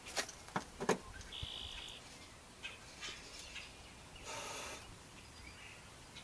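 Three sharp metallic knocks and clinks of hand tools in quick succession, a short high squeak, then a brief rattle.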